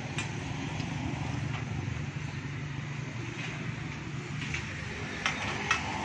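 Steady low motor rumble, with a few light knocks toward the end.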